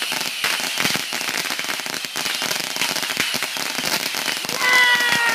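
Many linked firecrackers and fireworks going off in rapid, continuous succession, a dense crackling string of sharp bangs. Near the end a high pitched whistle joins in and falls away in pitch.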